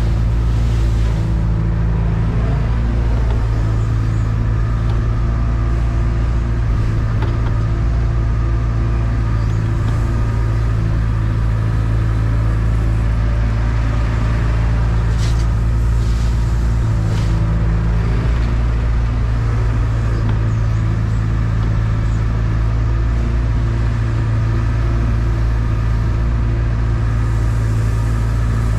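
Volvo 235EL excavator's diesel engine running steadily, heard from inside the operator's cab as the machine works and swings. A couple of faint light clicks sound about halfway through.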